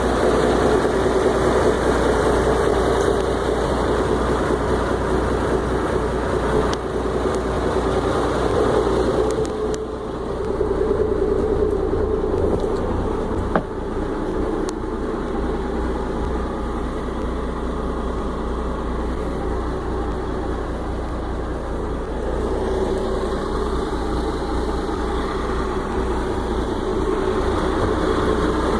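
Volvo Penta turbo diesel boat engine idling steadily, its level easing off and coming back a couple of times, with a single sharp click about halfway through.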